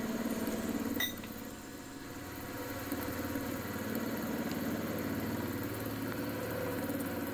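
Milling machine running steadily as a keyseat cutter cuts a keyway into a steel shaft under cutting oil, with one sharp click about a second in.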